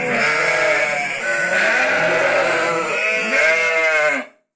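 Sönmez sheep and lambs bleating in the barn, several calls overlapping one after another, until the sound cuts off suddenly near the end.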